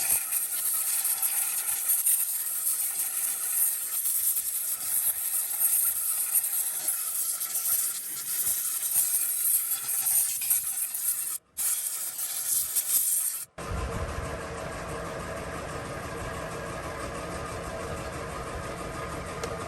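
A steady hiss, then after an abrupt cut about two-thirds of the way in, a car engine idling steadily.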